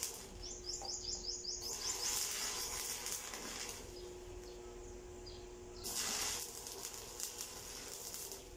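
Electric arc welding on a steel pipe pole: the arc crackles and hisses in two runs, about two seconds in for nearly two seconds and again briefly about six seconds in. A small bird chirps a quick string of calls about half a second in.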